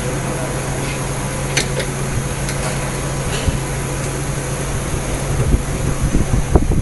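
Steady low machine hum, with a few light metallic clicks and, from about five seconds in, irregular knocks as a hex key works a screw on a metal machine fixture.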